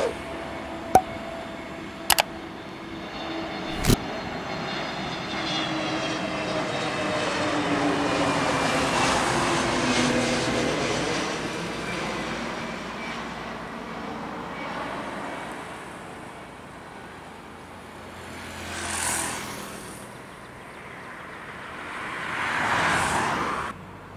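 Airbus A321 airliner passing low overhead on final approach, its engine noise swelling to a peak about eight to ten seconds in, the whine falling in pitch as it goes by, then fading. Three sharp clicks come in the first four seconds, and two shorter rises and falls come near the end, the second cut off abruptly.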